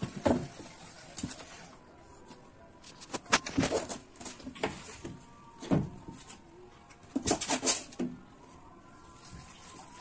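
Irregular scuffs and rustles of a long-haired cat rolling and twisting on its back on a tiled floor, in short bursts several times over.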